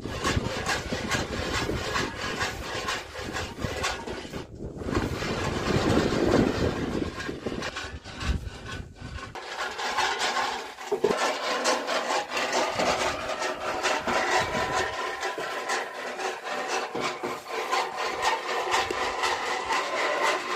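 Maize kernels being stirred and scraped in a pan over a wood fire: a continuous, dense rattling and scraping. A low rumble runs under the first half.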